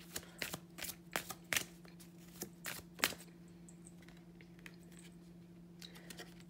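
A deck of oracle cards being shuffled by hand: a quick, irregular run of card snaps and flicks that stops about three seconds in. A steady low hum runs underneath.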